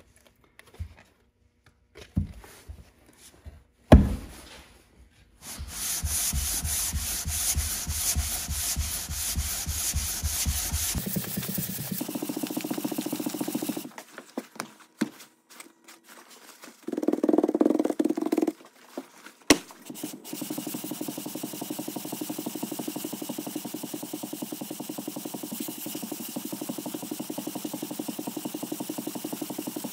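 A cast cylinder head being hand-lapped flat: slid back and forth over 220-grit sandpaper laid on a sheet of glass, giving a steady, rasping scrape. It opens with a few knocks, the loudest about four seconds in, and the scraping pauses and changes for a while in the middle.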